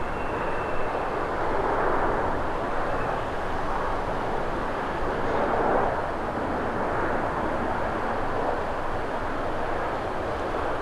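Airbus A350's Rolls-Royce Trent XWB turbofans on final approach: a steady rushing jet and airflow noise that swells slightly about halfway through as the airliner passes low toward the runway.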